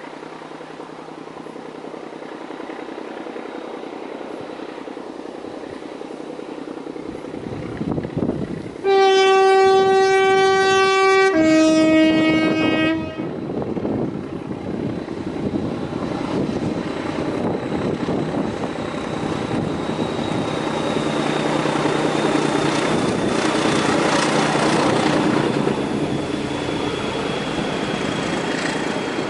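Heritage diesel locomotive approaching with a rising engine note. About nine seconds in it sounds its two-tone horn: a long higher note, then a shorter lower one. It then passes close by at speed, hauling a rake of coaches.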